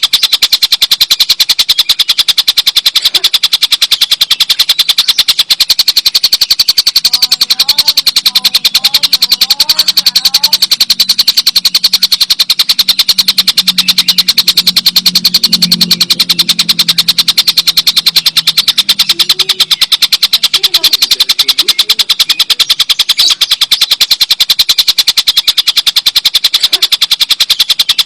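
Kingfisher (tengkek buto) giving its long, loud rattling 'ngekek' call: very fast, evenly repeated sharp notes that run on without a break. A faint low hum comes in about a third of the way through and fades again.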